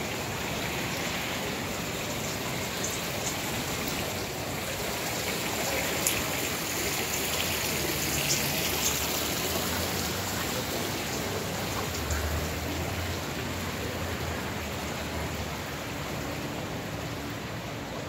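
Steady hiss of running water, with a few faint clicks about a third and halfway through.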